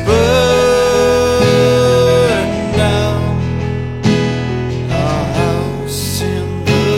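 Song music, an instrumental passage with guitar, a steady bass and a long held lead note in the first couple of seconds.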